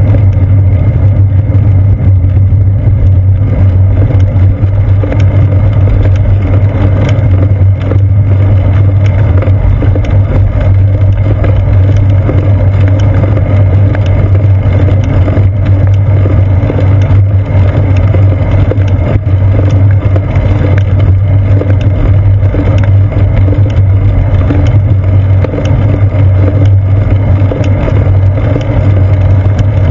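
Steady, loud low rumble of wind buffeting and road vibration picked up through a seat-post-mounted GoPro Hero 2 on a moving bicycle.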